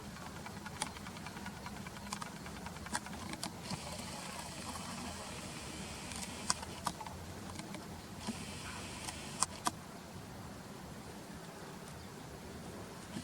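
Outdoor background noise: a steady low hum, with two stretches of hiss that start and stop abruptly, and several short sharp clicks.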